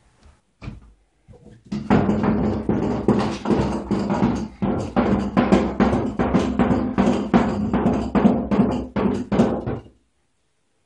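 Mini Brew plastic conical fermenter being shaken by hand, water sloshing and knocking inside it at about three strokes a second, stirring the yeast cake into the water for yeast washing. The shaking starts about two seconds in and stops abruptly near the end.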